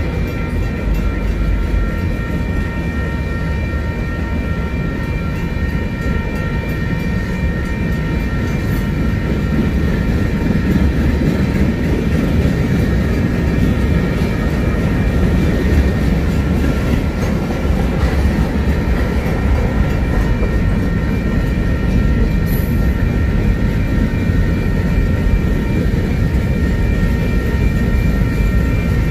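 Freight train cars rolling steadily past: a continuous rumble of wheels on rail, with a steady high-pitched ringing tone over it.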